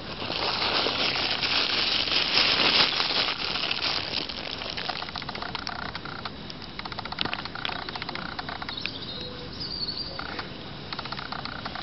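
Grey squirrel digging and scratching in soil and dry leaves close to the microphone: a dense rustling for the first few seconds, then quicker crackling scratches and clicks.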